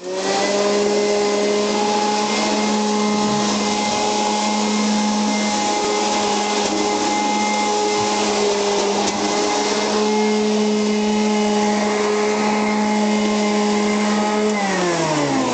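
Upright vacuum cleaner running on carpet with a steady motor hum. Near the end its pitch falls as the motor winds down.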